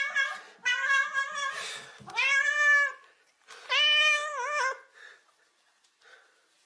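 A cat meowing repeatedly: about four drawn-out meows in quick succession, each with a slightly arching pitch, then a pause near the end.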